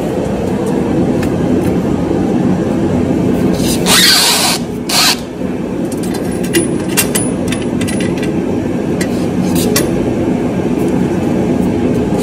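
Hands working a steering tie rod loose from the front spindle arm: two loud scraping rushes about a second apart near the middle, then a string of light metal clicks and taps, over a steady low drone.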